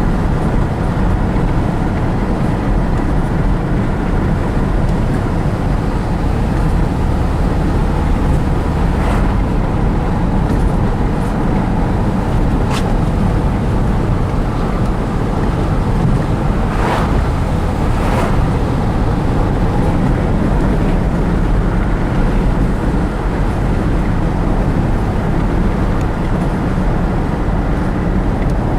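Steady road and engine noise heard from inside a moving truck's cabin, with a few light knocks and clicks.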